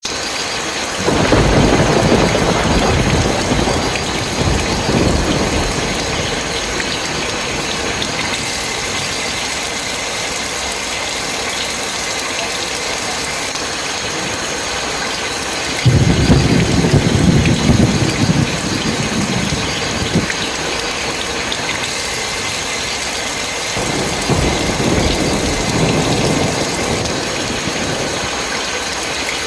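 Steady heavy rain hissing down. Three low rumbles, each a few seconds long, rise over it: one just after the start, one about halfway through, and a weaker one near the end.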